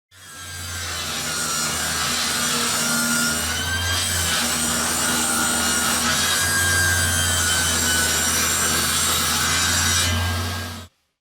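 Power saw cutting 8 mm birch plywood: a steady motor note under the noisy rasp of the blade in the wood. It fades in at the start and cuts off abruptly just before the end.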